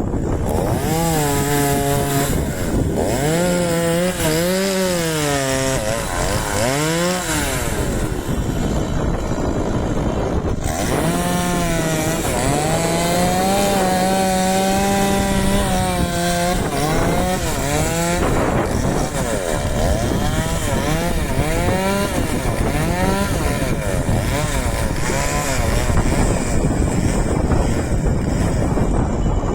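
Chainsaw running while cutting a tree, its engine pitch repeatedly rising and falling as the throttle is opened and eased.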